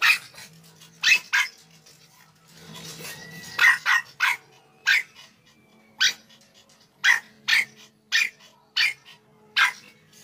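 American Eskimo dog barking: about a dozen short, sharp, high barks at uneven intervals, some in quick pairs.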